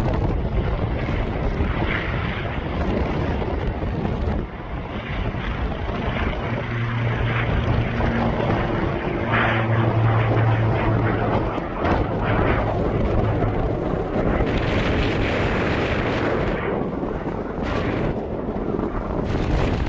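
Airplane engine noise with a steady low hum that comes in about six seconds in and fades out around thirteen seconds, heard through strong wind buffeting the microphone.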